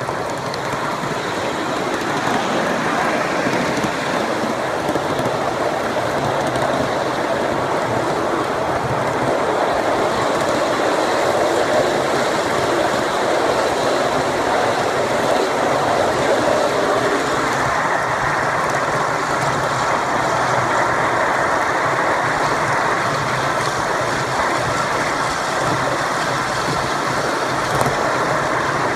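Ride-on miniature railway cars rolling along a 1-inch-scale track: a steady rolling noise of small wheels on rails, a little louder after the first second or two.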